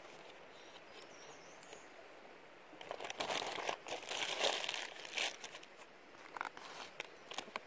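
Plastic packaging crinkling and rustling as it is handled and opened, with a dense burst of crackly rustling from about three seconds in, then a few lighter crinkles.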